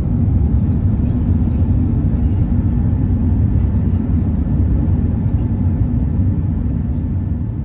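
Airliner cabin noise in flight: the steady low rumble of the jet engines and rushing air heard from inside the passenger cabin.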